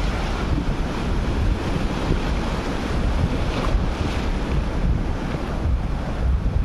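Sea surf breaking and washing around the shallows, with wind buffeting the microphone in a heavy low rumble.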